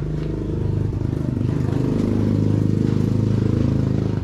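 A motor vehicle's engine running steadily with an even pulsing beat, getting louder over the first two seconds.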